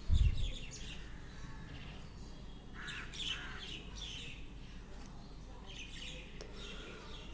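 Small birds chirping in the background: short, quick falling notes, repeated in loose clusters. A single low thump comes right at the start.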